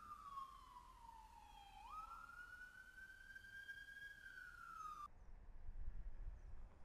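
Police SUV's siren in a slow wail: its pitch slides down, jumps back up, climbs, then starts falling again. It cuts off abruptly about five seconds in, leaving a low rumble.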